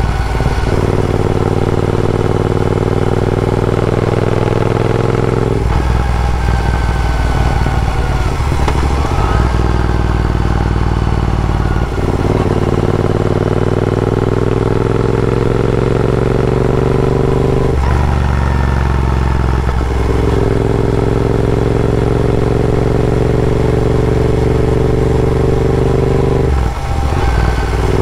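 Royal Enfield Interceptor 650's parallel-twin engine heard through AEW TE101 aftermarket exhausts under way. It accelerates through the gears: the engine note climbs steadily, then drops briefly at each shift, several times.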